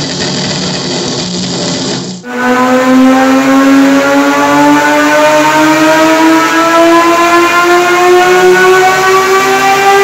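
Turismo Carretera Dodge race car's engine running on a roller dynamometer. After a cut about two seconds in, it accelerates under the rollers' load, its note rising slowly and steadily.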